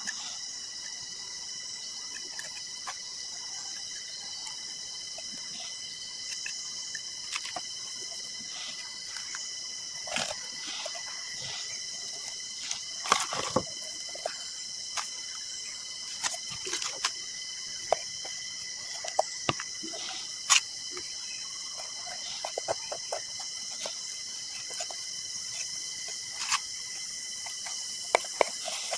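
Steady, high-pitched chorus of insects, with scattered sharp clicks, knocks and scrapes from a stick being worked inside a hardened cement-and-towel flowerpot.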